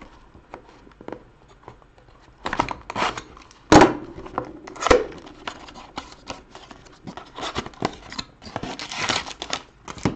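A cardboard trading-card box being opened by hand: scraping and tearing as the end flap is prised open, with a sharp click about four seconds in and busy rustling near the end.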